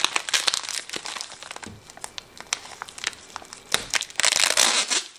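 Plastic packing wrap around a compressed memory-foam block crinkling and crackling as it is handled and picked at, with a louder, denser run of crinkling near the end.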